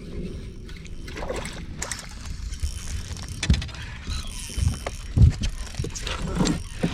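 Water sloshing against a boat's hull, with a few dull knocks on the boat, the loudest about three and a half and five seconds in.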